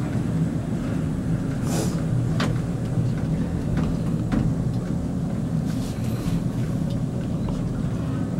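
Glass-cabin inclined lift (funicular) running along its track, a steady low rumble with a few faint clicks.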